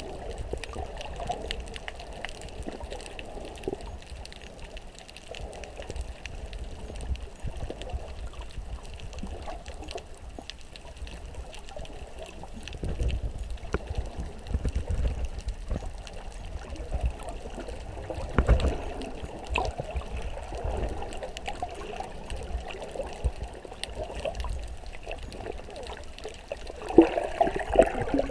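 Underwater sound through a GoPro's waterproof housing: muffled sloshing and bubbling of sea water with a low rumble and small clicks as the camera moves. It briefly gets louder near the end.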